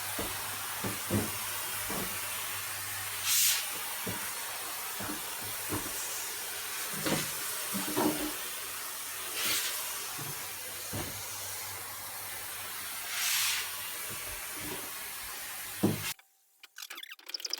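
Hand-pumped pressure canister sprayer spraying water onto a wall: a steady hiss, swelling louder three times, with scattered light knocks and taps. The hiss cuts off suddenly near the end.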